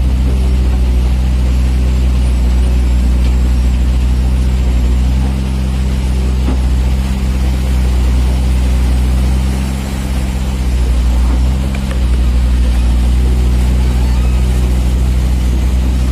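Caterpillar 336D excavator's six-cylinder diesel engine running steadily under working load close up, its level dipping briefly about ten seconds in.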